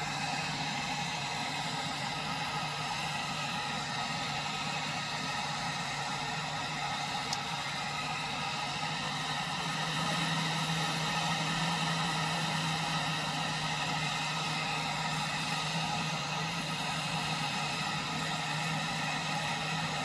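Small propane stove burner on a 1 lb propane cylinder running on a high flame with a steady roaring hiss as it heats a small pot of water not yet boiling. It grows a little louder about halfway through.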